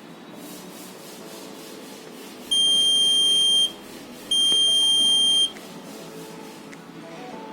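Buzzer of a homemade Arduino ultrasonic-sensor alarm sounding two long, steady, high-pitched beeps, each just over a second, with a short gap between them.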